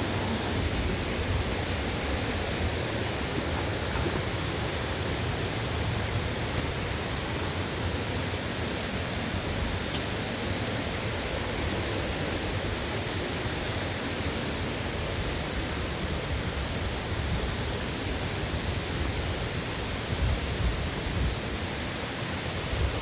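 Steady rush of fast-flowing water from a mountain stream and waterfall, with a fluctuating low rumble underneath.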